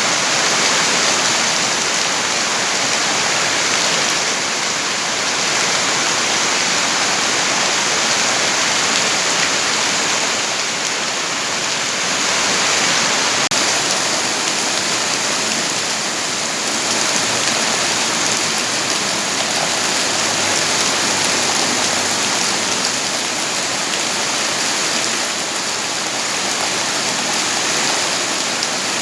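Steady, heavy rain: a constant dense hiss of falling rain.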